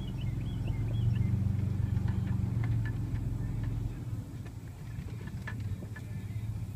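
An engine idling, a steady low hum that is loudest in the first half and eases off after about four seconds, with faint high chirps near the start.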